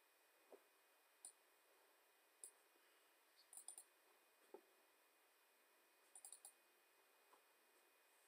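Faint computer mouse clicks, single ones and quick runs of two or three, a second or two apart, as folders are double-clicked open.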